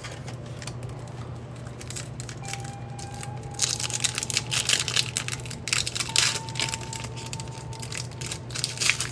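Foil trading-card pack wrappers being crinkled and handled. The handling is soft at first, then a dense crackling begins about three and a half seconds in and carries on to the end.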